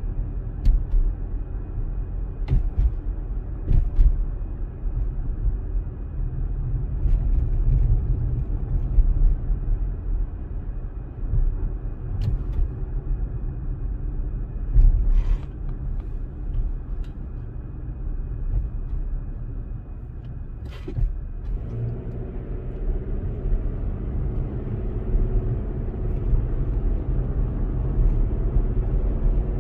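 A car driving: a steady low rumble of engine and road noise, with a few short clicks and knocks. About two-thirds of the way through, a humming engine note becomes clearer.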